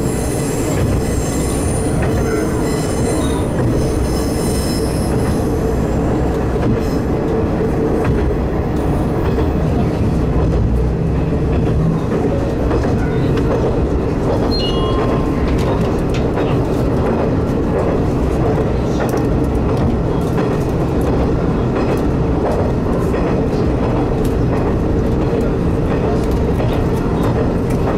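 Diesel railcar running along the line, heard from the cab end: steady engine and wheel-on-rail noise. A high wheel squeal sounds over it for the first five seconds or so.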